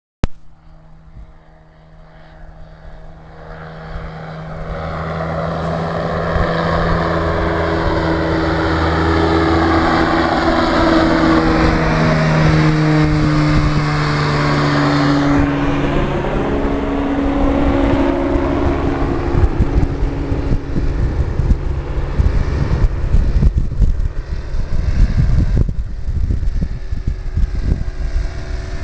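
Propeller aircraft flying past: the engine drone grows steadily louder, its pitch drops as it passes about halfway through, then it recedes into a rough rumble.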